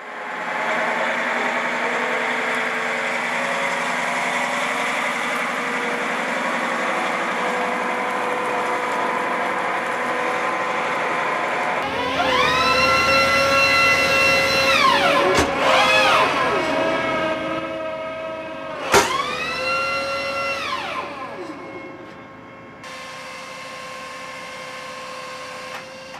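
An M270 MLRS tracked rocket launcher running steadily. About halfway through, its launcher drive whines up in pitch, holds and winds back down, three times, with two sharp clanks, as the launcher-loader module is worked for reloading.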